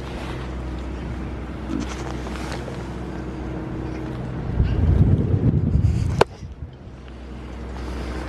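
Pygmy goat nuzzling the camera: its muzzle rubs and buffets the microphone for about a second and a half, ending in one sharp click. A steady low hum runs underneath.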